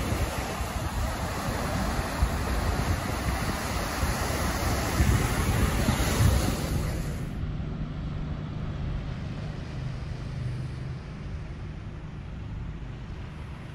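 Wind rushing over the microphone with a gusty low rumble. A little over halfway through it changes abruptly to a quieter, steady low hum.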